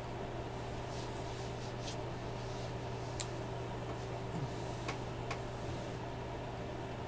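Steady low electrical hum with a few faint, short clicks, as hands rub and knead a bare belly.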